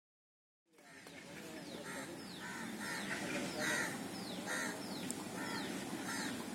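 A bird calling over and over, a short downward-sliding note about twice a second, over a steady low rumble; the sound fades in from silence under a second in.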